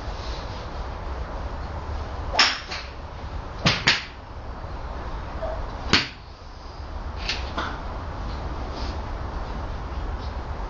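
Pitching wedge striking a golf ball for a low punch shot: one sharp click about six seconds in. Three similar sharp clicks come earlier and two fainter ones follow, over a steady low rumble.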